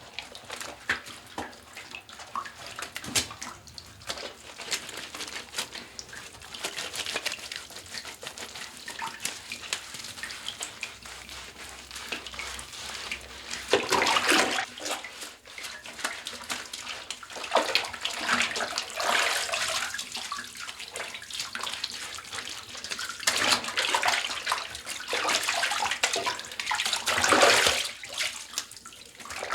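Water splashing and sloshing in a bathtub as someone bathes and washes, in irregular bursts that grow louder and busier in the second half.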